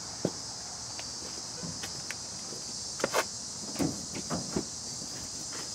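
Steady high-pitched insect chorus, with a few scattered knocks and scuffs of the camera being handled.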